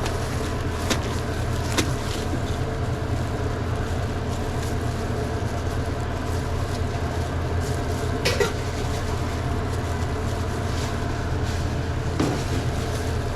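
Steady low hum of running restaurant kitchen equipment, with a few light clicks and knocks from handling at the counter, the loudest about eight seconds in.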